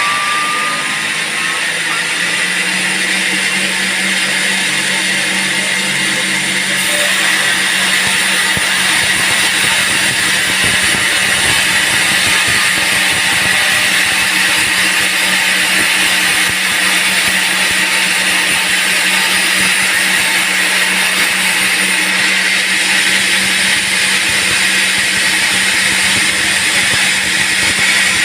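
Band sawmill cutting a teak log: a steady whine of the blade through the wood over the constant hum of the mill's motor, growing a little louder about seven seconds in.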